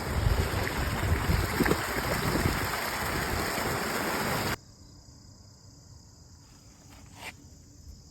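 Rushing river water close to the microphone, with low bumps of handling, as a caught bass is put back. About halfway through it cuts off suddenly to a much quieter background of faint insects, with a single click near the end.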